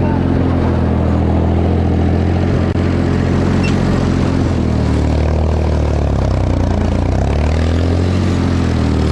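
Ford 4000 tractor engine running steadily while pulling a New Holland 273 hay baler, its note sagging slightly about two-thirds of the way through and then recovering.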